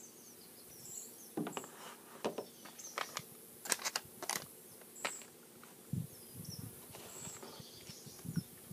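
Quiet outdoor ambience: short, faint high-pitched chirps now and then, a run of sharp crackles and clicks in the first half, and a few low thumps near the end.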